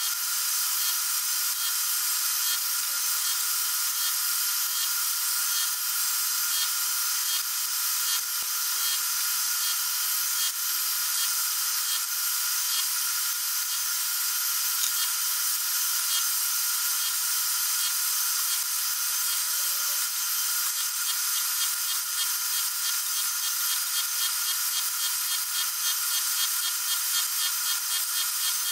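Milling machine running steadily as its cutter machines the cam lobes of a small model-engine camshaft: an even high hiss with a steady whine, unchanging throughout.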